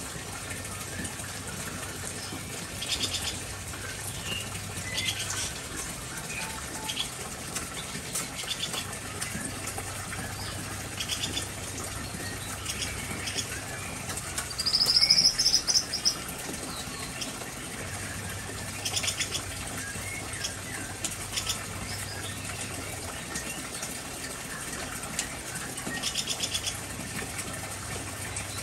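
Aviary songbirds calling: scattered high chirps and short rapid trills, with one louder high whistled note about halfway through, over a steady background hiss and a low hum.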